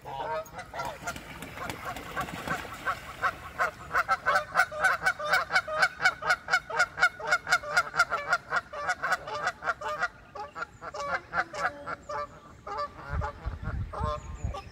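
Canada geese honking, with a fast run of honks at about four or five a second in the middle and more scattered calls around it, as the geese squabble on the water.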